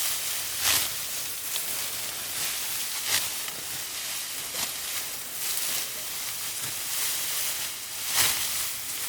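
Rice stalks rustling and swishing as ripe rice is reaped by hand, with a sharper swish every few seconds over a steady hiss of moving straw.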